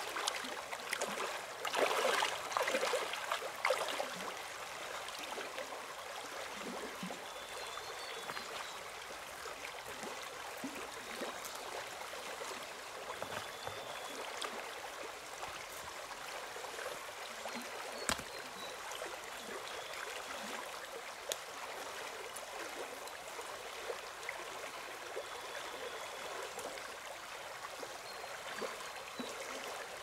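Steady rain falling: a constant hiss with many small drip taps. It is louder for the first few seconds, and there is one sharper tap a little past halfway.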